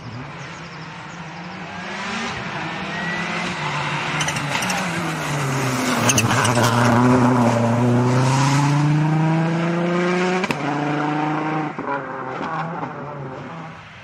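Rally car engine sound of the Mitsubishi WRC05, revving up and down through the gears. Its pitch climbs, dips briefly about six seconds in, then climbs steadily in the loudest stretch until it drops sharply about ten and a half seconds in, running lower and fading near the end.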